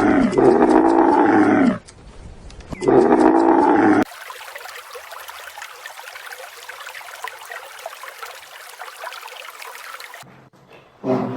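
Loud, drawn-out animal calls, two in a row, each with a falling pitch. They are followed by about six seconds of a fainter steady hiss that cuts off suddenly, and a short call near the end.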